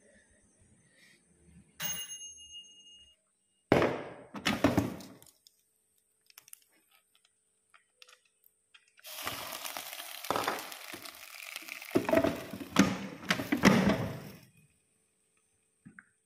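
Round Thai eggplants, chilies and eggs being dropped and tipped into an air fryer's basket: a sharp clink about two seconds in, a few loud knocks a couple of seconds later, then a longer run of rattling and thuds.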